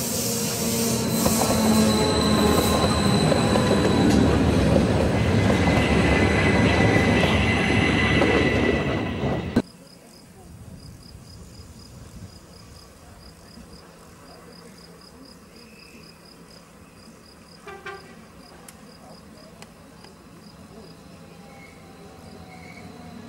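Rhaetian Railway Allegra electric train running close past into the station, its wheels squealing on the curve. About ten seconds in the sound cuts off suddenly to a much quieter background with a faint, quick, high-pitched pulsing, and the train is faintly heard again far off, with a light squeal and growing louder near the end.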